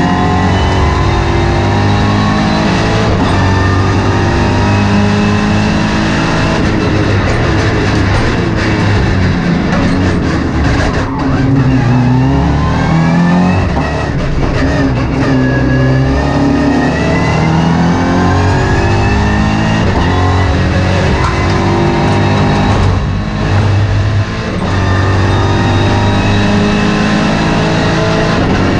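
MINI John Cooper Works race car's turbocharged four-cylinder engine heard from inside the cockpit at racing speed. The engine note climbs through the gears and drops back under braking, falling deeply in pitch then climbing again about halfway through, with a short lift off the throttle near the end.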